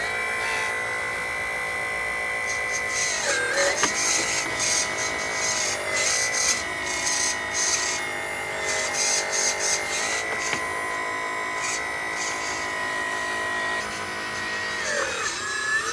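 Homemade 1/6-scale RC truck's motor whining steadily. The pitch dips and comes back up about three and a half seconds in, and dips again near the end as the motor slows and speeds up.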